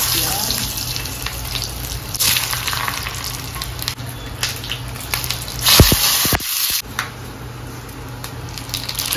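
Onion, garlic, curry leaves and dried red chillies sizzling in hot oil for a tempering (baghaar/tadka). There are louder surges of sizzling about two seconds in and around six seconds, where a low thump also sounds.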